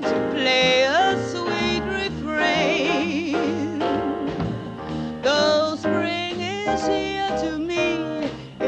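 Female jazz vocalist singing a slow ballad live with a piano, upright bass and drums trio, with a long held note in wide vibrato about two and a half seconds in.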